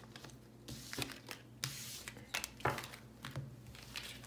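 Tarot cards being picked up and gathered on a table: soft sliding and rustling of cards against each other, with several light taps as they are stacked.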